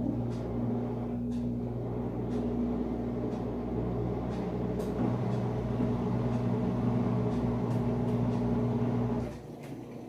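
Panasonic 14 kg washing machine running with a steady hum, which stops about nine seconds in.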